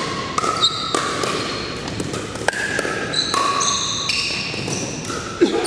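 Pickleball paddles striking the hard plastic ball in sharp pops, several in a few seconds, the loudest near the end, with sneakers squeaking on the hardwood gym floor.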